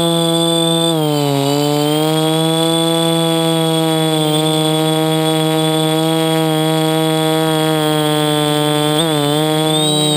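DJI quadcopter's electric motors and propellers buzzing steadily, heard through the onboard GoPro. The pitch dips about a second in and climbs back over the next second, with a brief wobble near the end.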